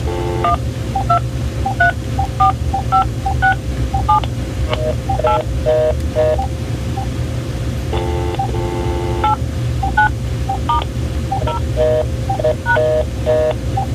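AT&T EL52200 DECT 6 cordless handset keypad beeping through its dialing tones as the number keys are pressed one after another. There are many short two-note beeps, and twice a longer, lower tone. Every key sounds, so all the number keys are working.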